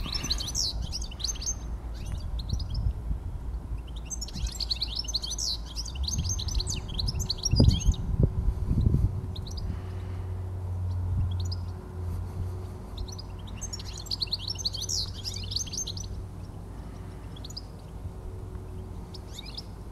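European goldfinch singing: three bursts of fast, high twittering song, near the start, about four seconds in and about fourteen seconds in, with scattered single notes between. A low rumble runs underneath, with a few heavy low thuds around eight seconds in.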